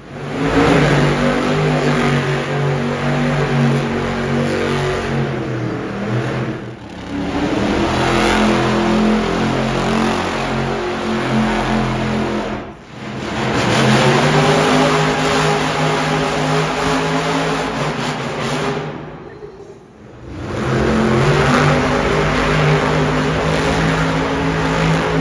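Monster truck engines revving hard, their pitch rising and falling as the trucks drive and spin. The sound drops away briefly three times between clips.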